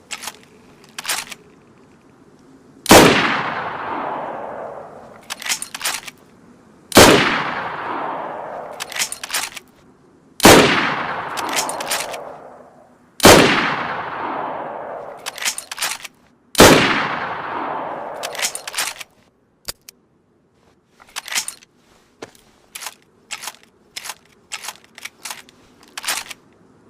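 Mosin-Nagant 91/30 bolt-action rifle in 7.62×54R firing five single shots about three to four seconds apart, each with a long echoing tail. Short metallic clicks of the bolt being worked come between the shots, and a run of quick clicks follows the last shot.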